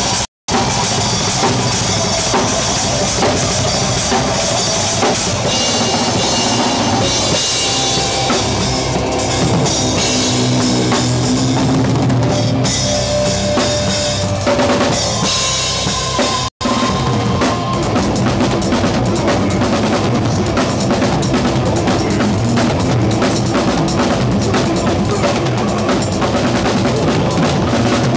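Live death metal drumming on a full rock drum kit, heard up close, with bass drum, snare and cymbals played hard and fast and the rest of the band behind. The sound cuts out completely for a split second twice: just after the start and about halfway through.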